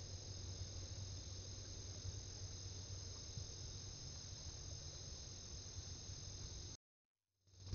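Steady night chorus of crickets and other insects, a continuous high-pitched trill over a low steady hum. The sound cuts out suddenly about a second before the end and fades back in.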